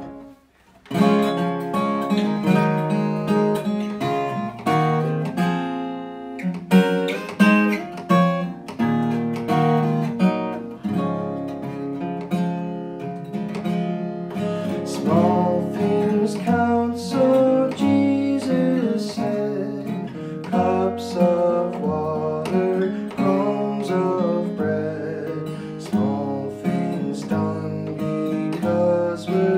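A man singing a song to his own acoustic guitar. The guitar starts about a second in and plays alone at first, and the voice joins partway through.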